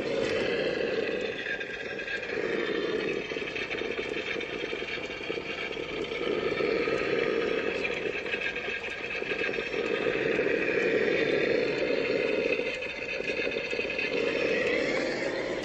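Traxxas TRX-4 RC crawler running, a steady engine-like motor and drivetrain hum that swells and eases every few seconds as it crawls.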